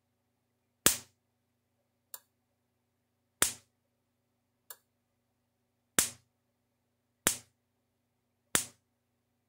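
Gallagher M1000 electric fence charger's high-voltage pulses arcing across a screwdriver gap between the fence and ground terminals: a sharp snap about every 1.3 seconds, seven in all, the second and fourth much fainter. The spark is a bright one, a sign of strong output from this 10-joule unit.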